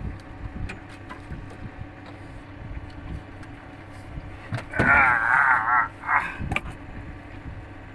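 A steady low hum runs throughout. About five seconds in, a loud warbling trill wavers rapidly in pitch for about two seconds, with a few sharp clicks.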